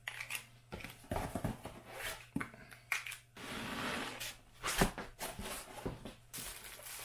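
Packing being handled in a cardboard box: a foam corner protector pulled off, then a white foam block lifted and slid out of the carton with a rubbing scrape about halfway through, among several light knocks and bumps of foam and cardboard.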